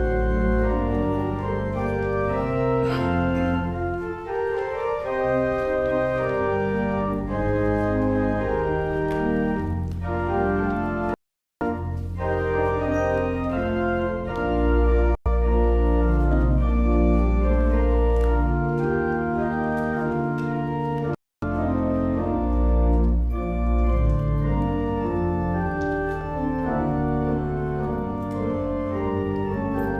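Church organ playing the postlude: sustained chords over a deep pedal bass. The sound drops out completely for a moment about eleven seconds in, and again briefly around fifteen and twenty-one seconds.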